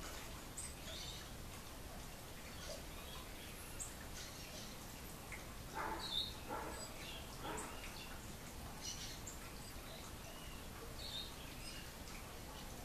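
Wild birds chirping and calling, with short high chirps scattered over a steady background hiss. A louder cluster of harsher sounds comes about six seconds in.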